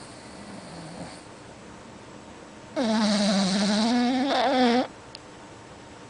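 A sleeping pet snoring: one long, pitched snore of about two seconds, a little past the middle, with a fainter breath in the first second.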